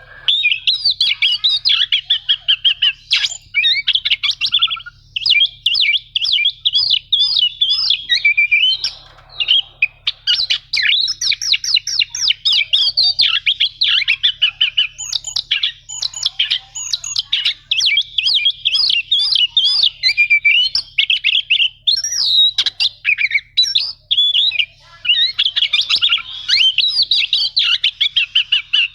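Oriental magpie-robin (kacer) singing a fast, unbroken run of high, varied chirps and trills, a long rolling song with short pauses about eight and twenty-four seconds in.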